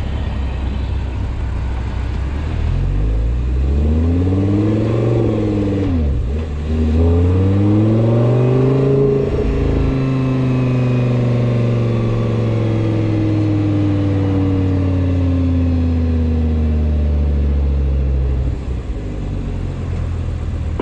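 Car engine pulling up in revs, dropping sharply, climbing again, then winding down slowly over about eight seconds. Faint higher tones rise and fall with it: the whine whose normality the owner is unsure of.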